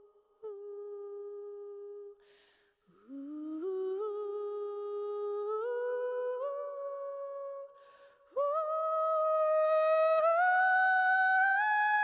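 One voice humming a slow, wordless melody: long held notes that climb in small steps, with a breath after about two seconds and another near eight seconds, louder after the second breath.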